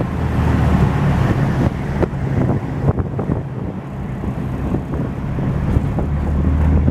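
Engine and road noise of a red Chiang Mai songthaew (shared pickup-truck taxi), heard from the passenger bench: a steady low drone with wind buffeting the microphone and a few light rattles.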